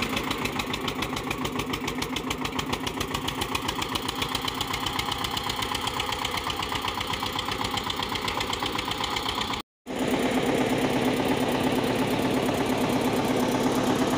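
Eicher 241 tractor's single-cylinder diesel engine running at a steady, even beat while pulling a seed drill. It drops out suddenly about ten seconds in and comes back louder and closer.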